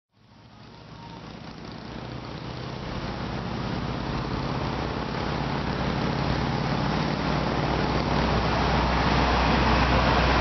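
Motor vehicle engine running steadily, with street traffic noise around it, growing from faint to loud over the whole stretch.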